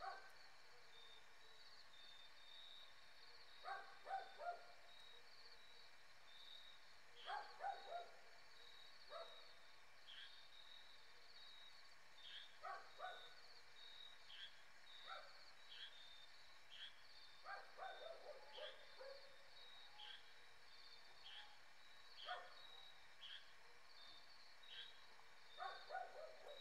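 Faint animal calls: a steady high chirring runs throughout, and short pitched calls come in clusters of two to four every few seconds.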